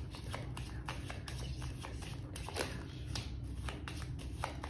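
A deck of playing cards being shuffled by hand, making soft, irregular clicks and flutters as the cards slide and tap against each other.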